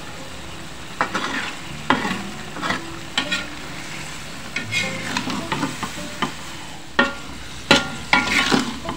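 Metal spatula stirring long beans in coconut-milk sauce in a metal wok: irregular scrapes and knocks against the pan, busiest near the end, over a soft sizzle from the simmering sauce.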